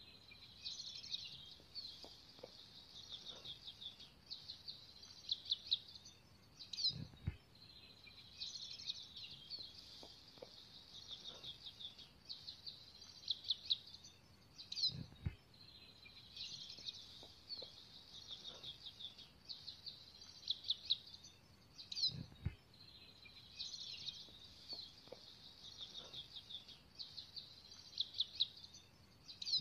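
Small birds chirping and singing in quick, high-pitched trilled phrases that repeat over and over, with a soft low thump recurring about every seven and a half seconds.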